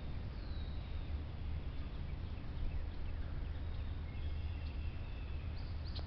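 Outdoor background: a steady low rumble, with faint thin high-pitched tones about half a second in and again from about four seconds in.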